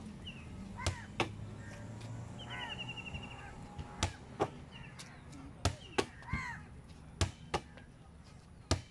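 Rubber ball thrown and caught over and over: pairs of sharp smacks about half a second apart, repeating every second or two. Birds call in the background, with a short trill about two and a half seconds in.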